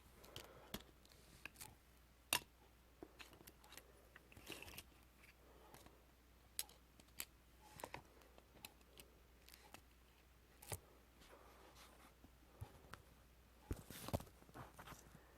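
Faint, irregular clicks and brief light rustling, a few scattered ones every second or so, over a low steady hum.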